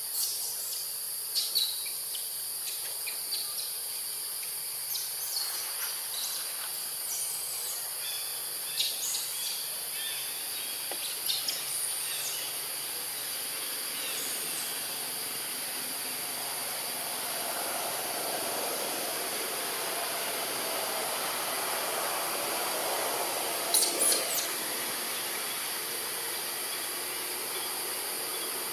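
Outdoor woodland ambience: a steady high-pitched insect drone, with scattered short bird chirps, the loudest about 24 seconds in. A soft, broad hiss swells in the second half and fades again.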